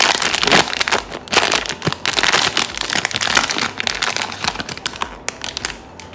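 Plastic blind-box packaging being crinkled and crumpled by hand, a dense run of crackles that stops just before the end.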